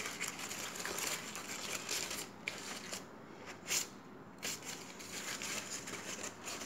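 A crumpled, softened sheet of A4 paper being folded and pressed flat by hand, crinkling and crackling in short rustles, with a quieter spell about three seconds in.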